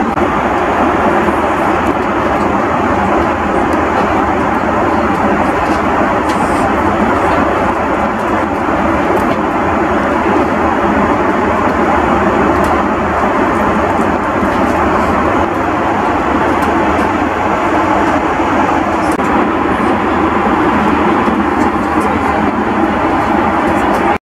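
Steady cabin noise of an Airbus A330 airliner in flight: an even rush of engine and airflow noise inside the cabin.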